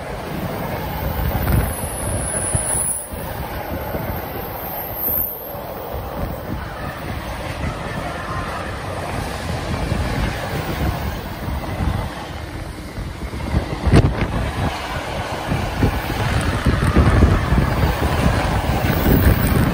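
Freight train of car-carrier wagons rolling past at close range: steady noise of steel wheels running on the rails. There is a single sharp click about fourteen seconds in.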